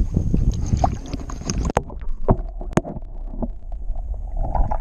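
Wind and lapping lake water, then about two seconds in the sound turns muffled as the camera dips under the surface: underwater gurgling with faint clicks and knocks.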